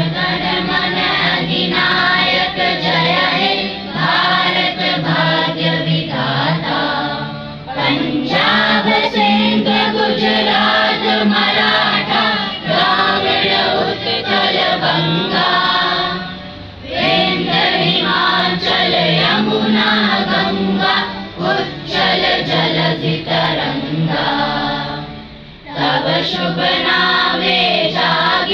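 A group of children singing together as a choir, phrase after phrase, with short pauses between phrases.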